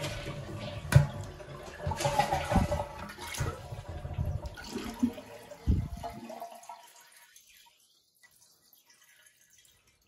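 Toilet flushing with its water supply shut off, so the tank drains without refilling. There is a sharp click about a second in, and the rushing water dies away about six seconds in, leaving near silence.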